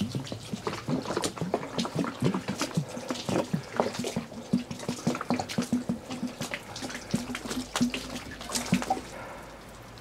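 Water glugging and splashing as it is poured from a plastic jug onto a freshly sawn white oak slab, in quick, irregular spatters.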